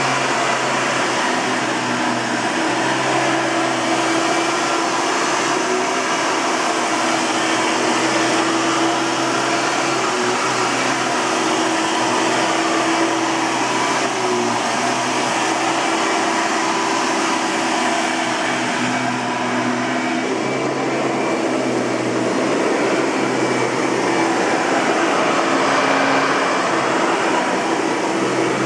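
1997 Hoover TurboPower 4000 Elite upright vacuum cleaner running steadily; its tone changes slightly about two-thirds of the way through.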